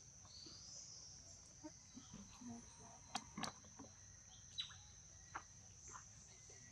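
Faint steady high-pitched insect drone, with a few soft clicks and short chirps scattered through it, the clearest a little past the middle.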